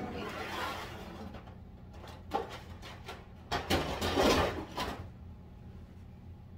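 Scraping, rubbing and knocking of things being moved and handled at a kitchen counter during cleaning, loudest from about three and a half to five seconds in, over a steady low hum.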